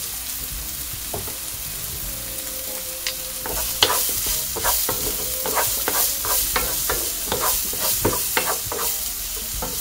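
Mushrooms and mixed vegetables sizzling steadily in a non-stick frying pan. About three and a half seconds in, a wooden spatula starts stirring them, scraping and tapping against the pan in quick repeated strokes.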